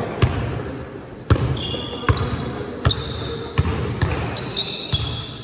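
A basketball bouncing on a gym floor during play, about six thuds spaced unevenly, with short, high squeaks from sneakers on the court.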